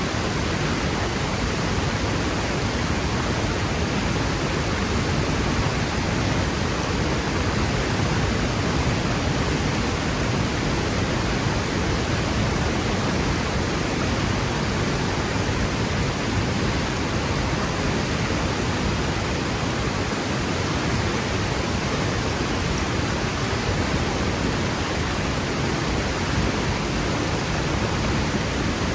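Waterfall pouring and crashing into its pool, a loud, steady rush of water with no change.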